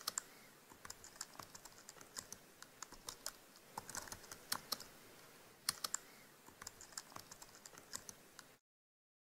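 Typing on an iPhone's touchscreen keyboard: quick, irregular, faint taps and clicks, one per keystroke. They stop abruptly about half a second before the end.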